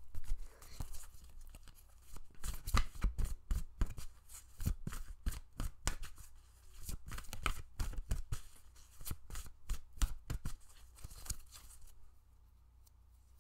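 Tarot deck being shuffled by hand: a dense, irregular run of card flicks and slaps that stops near the end.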